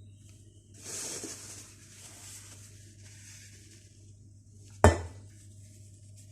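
Spoon scraping cake batter from a mixing bowl into a container, then one sharp knock of utensil against dish a little before the end.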